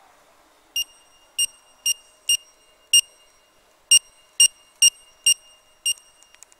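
Handheld barcode scanner beeping as it reads laser-marked barcodes on plastic security seals: ten short, identical, high-pitched beeps, unevenly spaced about half a second to a second apart, each one a successful scan.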